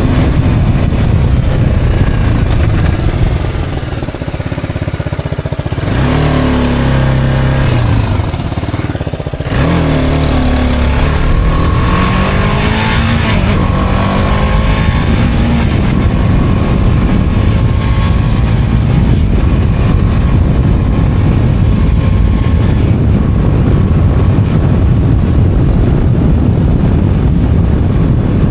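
Motorcycle engine under way with steady wind rush: the engine eases off briefly, then the revs climb about six seconds in, drop at a gear change near the ten-second mark, and climb again before settling into a steady cruise.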